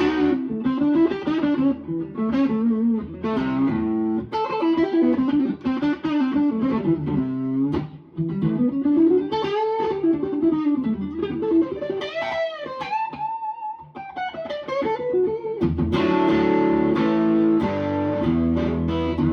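Electric guitar played through its neck P90 pickup with the volume on 10. It plays a single-note riff with several wide string bends, then fuller chords near the end. The tone is smoky and sort of milky, classic sounding.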